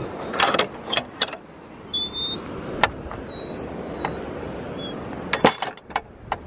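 Spring-loaded metal bolt latch on a wooden field gate clicking and clanking as it is worked by hand, with knocks of the wooden gate: a cluster of sharp clicks near the start and another about five and a half seconds in. Wind on the microphone runs underneath.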